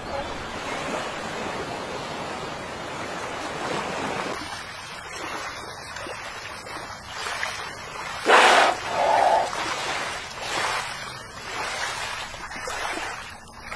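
Sea water sloshing and lapping around a humpback whale's head held upright out of the water. A little past halfway comes one loud, short rush of noise, followed by a brief fainter sound.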